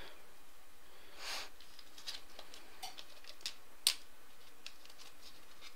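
A trading card being handled and slid into a plastic sleeve: a soft rustle and a few light clicks, the sharpest about four seconds in.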